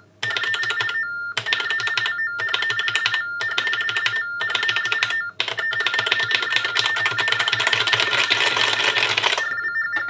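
Minicom 5000 text telephone sending Baudot-code tones as letters are typed on its keyboard: a warbling beep that flips between two pitches, a 'bee-doo' for each letter. It runs almost continuously with a few short breaks, over the clicking of the plastic keys.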